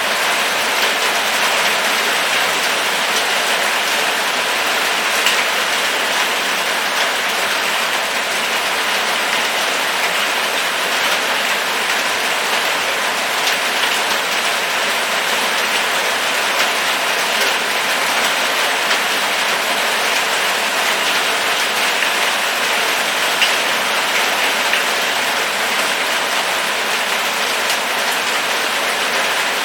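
Rain falling steadily: an even hiss with scattered individual drops ticking through it.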